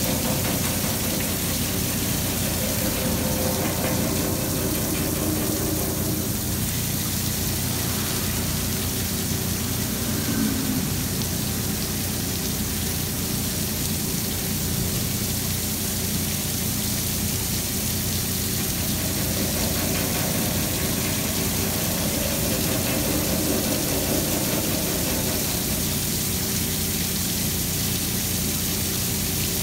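Bridge-type CNC gantry milling machine face milling a metal workpiece with a 160 mm face mill: a steady cutting noise with a constant hum under a rain-like hiss of coolant spray and falling chips.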